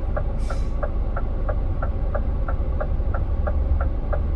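Inside the cab of a Scania R450 truck: the six-cylinder diesel idles with a steady low hum while the turn-signal indicator ticks evenly, about three clicks a second.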